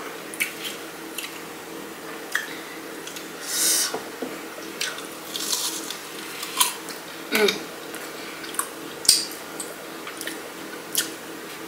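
Close-up eating sounds: bites and chewing of a Flamin' Hot Cheeto-crusted fried pickle, heard as irregular short crunches and wet mouth clicks.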